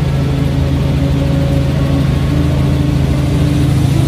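Robinson R44 Raven II helicopter heard from inside the cabin in cruise: its Lycoming six-cylinder piston engine and rotors make a steady, even drone.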